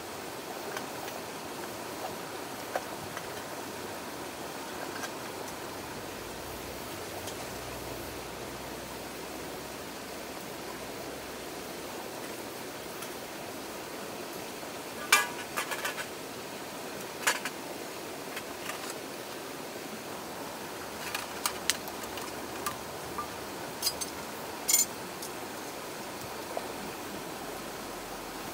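Wood fire crackling under a mess tin, with a few sharp pops, a cluster about halfway through and more in the last third, over the steady rush of a shallow rocky stream.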